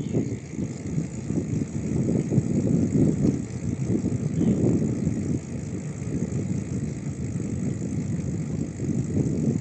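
Steady, fluttering low rumble of riding a bicycle: wind buffeting the camera's microphone over the tyres rolling on the road.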